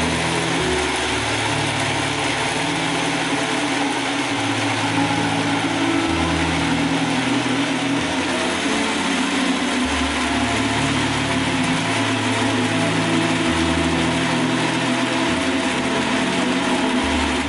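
Electric countertop blender running steadily, its motor whirring as it purees cooked rice porridge with vegetables into smooth baby food.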